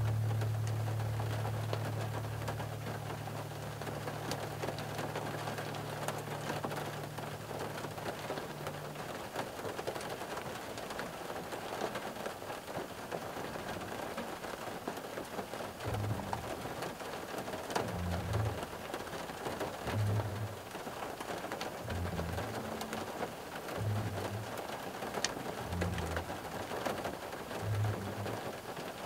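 Rain falling on a car, heard from inside the cabin: a steady patter of drops on the roof and window glass. A low hum fades away over the first nine seconds, and from about sixteen seconds a low beat pulses roughly every two seconds.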